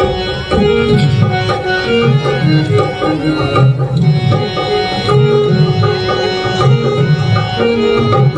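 Instrumental passage of a recorded Hindi song: a steady hand-drum rhythm under a held melody line.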